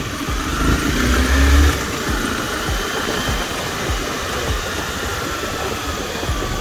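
Sport motorcycle riding along, its engine running under a steady rumble of road and wind noise; the engine note swells and rises briefly about a second in.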